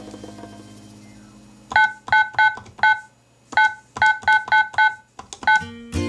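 Toy cash register keypad beeping as its number keys are pressed: about a dozen short electronic beeps at a quick, uneven pace, after the fading tail of a chime. A low sustained tone comes in just at the end.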